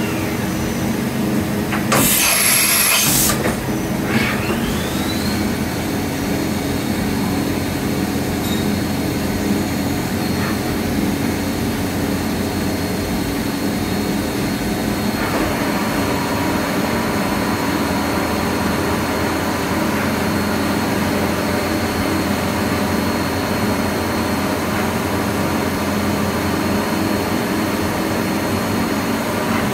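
Daewoo Mynx 500 vertical machining centre: a short, loud blast of air about two seconds in, during a tool change. Then the spindle spins up with a rising whine and runs on at a steady high pitch over the machine's constant hum.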